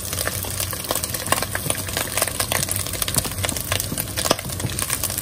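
Diced bacon frying and crackling in its own fat in a pot over high heat, as sliced onions are tipped in off a board and land on it. Dense crackles run steadily over a low hum.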